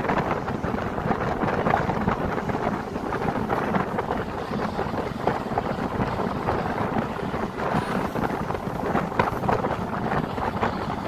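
Running noise of a moving vehicle with wind buffeting the microphone, a steady rushing rumble with irregular crackle through it.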